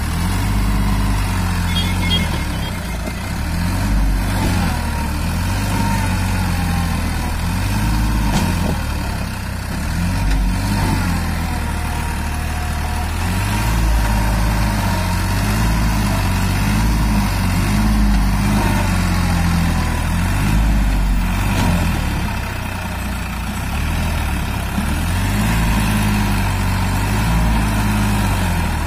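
Sonalika DI 47 RX tractor's three-cylinder diesel engine running under load as it pulls a fully loaded soil trolley. The engine note rises and falls repeatedly.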